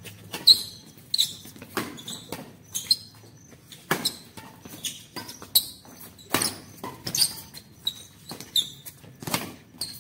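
Badminton doubles rally on a bare hard court: a quick run of sharp racket strikes on the shuttlecock, mixed with footfalls and short high shoe squeaks, about one or two a second throughout.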